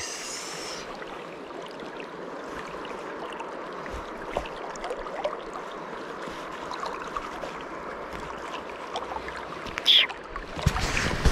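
River current rushing steadily, with a short sharp sound about ten seconds in.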